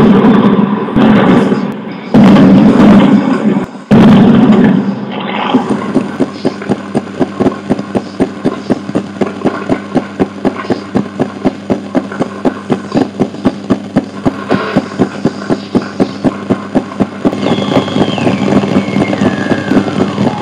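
Soundtrack of a castle projection-mapping show. It opens with a few heavy booming hits in the first five seconds, then settles into a steady ticking pulse, about three a second, over a low drone. Near the end a whistling tone glides down in pitch.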